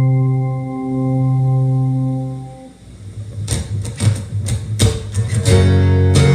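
Recorded music played back through a videoke speaker system during a sound test: a held low chord fades out about two and a half seconds in, then guitar picking and strumming starts a second later and builds into a full track.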